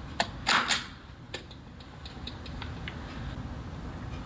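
A hand stamp clacked down on a paper form on a counter, with two sharp strikes about half a second in, followed by light ticks and scratches of a pen writing on the paper.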